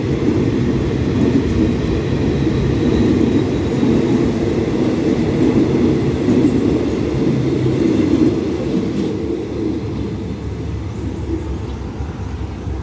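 Passenger train running along the track, a steady low rumble that eases off after about eight and a half seconds.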